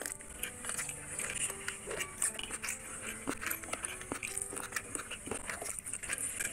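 Close-miked wet squelching and clicking as a hand mixes rice into a plate of chicken curry gravy.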